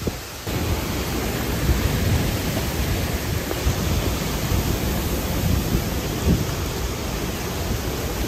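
Hurricane wind and torrential rain: a steady, loud rushing noise, with low buffeting from gusts hitting the microphone that swells and fades.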